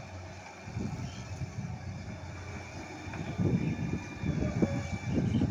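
Hydraulic crawler excavator's diesel engine working under load as it swings a bucket of sand over to a dump truck and tips it in, with a faint steady high whine; the rumble grows louder about three seconds in.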